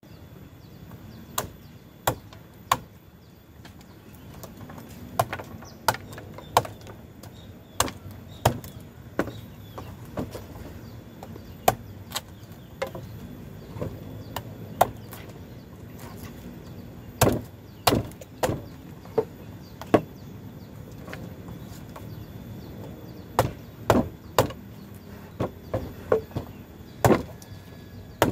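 Machete blade chopping and slicing into the husk of a young coconut: many sharp, irregular strokes, some single and some in quick clusters.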